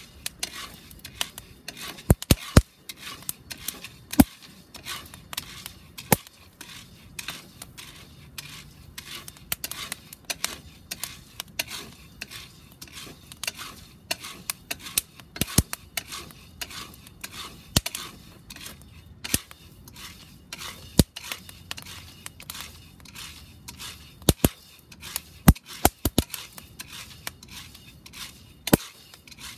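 Coffee beans crackling as they roast in a round cast-iron pot: irregular sharp pops, several a second, some much louder than others. A wooden spatula stirs and scrapes the beans against the pot at times.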